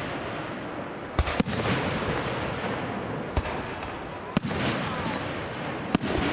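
Fireworks shells bursting overhead: about six sharp bangs, a pair close together about a second in, then single bangs every second or two, each followed by a fading tail of crackle and echo.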